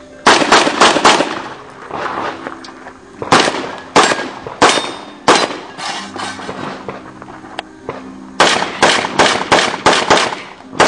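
Handgun fired in rapid strings during an IPSC practical pistol stage: about four quick shots at the start, four more spaced a little further apart a few seconds in, then a fast string of around eight shots near the end.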